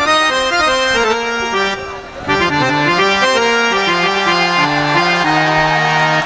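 A free-reed keyboard instrument plays a traditional-style melody over held lower notes, with a short break about two seconds in.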